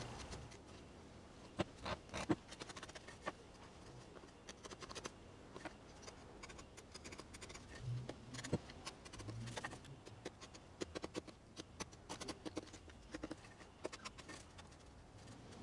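Wood chisel pushed by hand, paring and scraping waste out of dovetail sockets: faint, irregular clicks and scratches, with a few sharper snaps about two seconds in.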